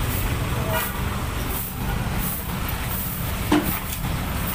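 Truck engine running, a steady low rumble, with one sharp knock about three and a half seconds in.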